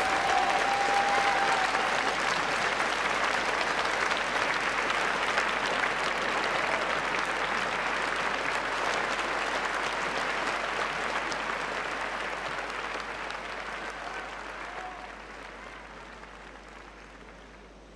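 Audience applauding steadily, the clapping dying away over the last few seconds.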